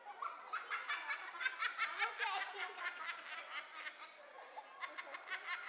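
Spectators' high-pitched voices nearby, laughing and chattering in quick bursts, easing off about four seconds in and starting again near the end.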